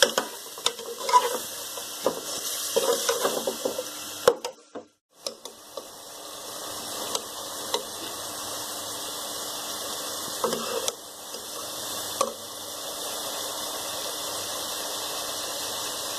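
A metal spoon stirring and scraping yogurt-marinated chicken in a metal pot of hot ghee, with clinks against the pot for the first few seconds. After a short break about four seconds in comes a steady sizzle of the chicken frying in the ghee, with an occasional scrape of the spoon.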